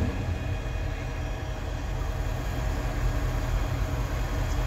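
Fire engine running steadily to drive its pump, a low drone with a noisy hiss over it, while firefighters spray water from a hose line.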